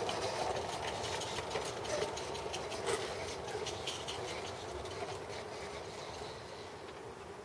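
Roundhouse Silver Lady 16mm-scale live-steam locomotive running with its train: a steady steam hiss with many small irregular clicks and ticks, fading gradually as it draws away.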